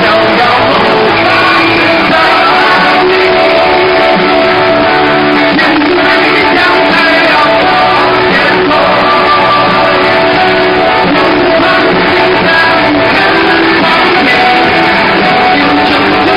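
Live rock music at a concert: a band with guitar and a lead vocal, the crowd singing along, loud and continuous.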